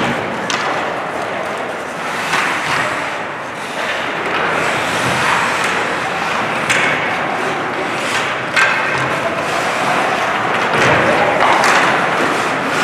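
Youth ice hockey play in a rink: skates scraping and carving on the ice, with a few sharp knocks of stick, puck or boards, and voices calling in the background.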